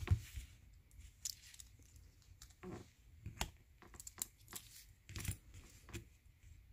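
Faint, scattered clicks and light taps of a die-cast toy car being pulled apart by hand, its drilled-out metal body, plastic window piece, interior and chassis coming loose and being set down on a tabletop.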